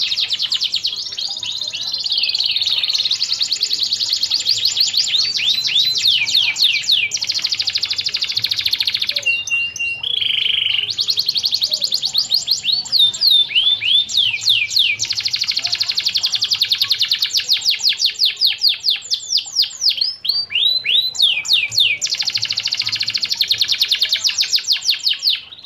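Canary singing a long, fast song of rapid trills and rolls built from quickly repeated sweeping notes. About nine seconds in the trilling breaks for a brief steady whistled note, then resumes.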